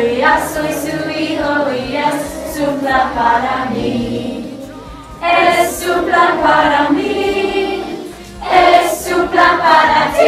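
A group of voices singing a song together, in phrases that dip briefly twice.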